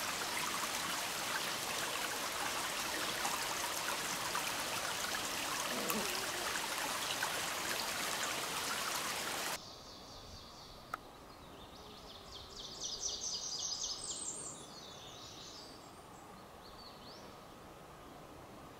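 Mountain stream running and splashing over rocks, a steady rush that cuts off abruptly about halfway through. Quieter open-air ambience follows, with a songbird singing a short run of repeated high chirps a few seconds later.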